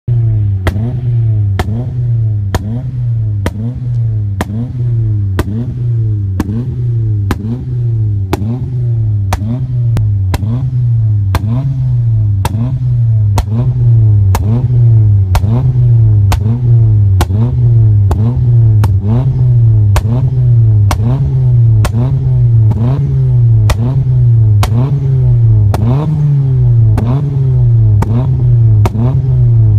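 Exhaust of a turbocharged Mitsubishi Colt CZT with a decat 2.5-inch straight-through system, the engine rising and falling in revs in a steady rhythm, about three cycles every two seconds, with a sharp pop on each cycle.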